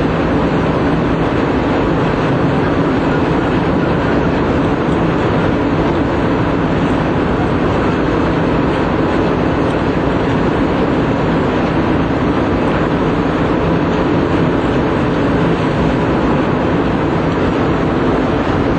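Loud, steady mechanical running noise with no breaks, like heavy machinery or an engine.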